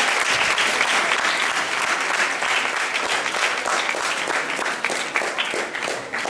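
Audience applauding: dense, steady clapping that thins out and grows quieter near the end.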